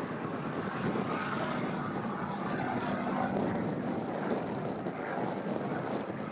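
Supermarine Spitfire's piston engine and propeller droning steadily in flight.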